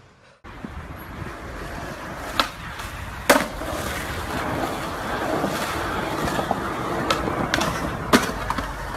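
Skateboard wheels rolling on concrete, with several sharp clacks of the board popping and landing, the loudest about three seconds in and another near the end.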